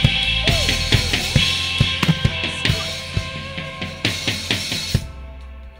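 Live church band: a drum kit playing a quick run of hits with crashing cymbals, stopping suddenly about five seconds in and leaving soft held keyboard chords.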